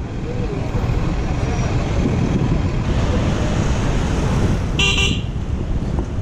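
Steady rumble of city traffic and wind on the microphone, with one short horn toot about five seconds in.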